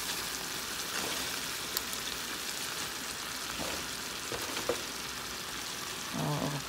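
Sardines in red sauce, with sautéed garlic and onion, sizzling steadily in a hot frying pan as fresh spinach leaves are piled on top.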